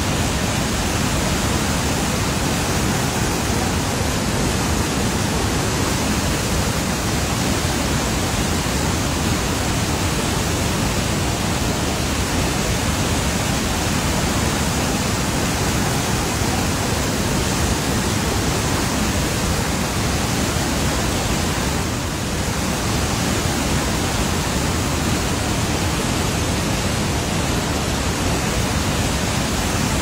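Flood-swollen waterfall, a steady loud roar of rushing, churning water.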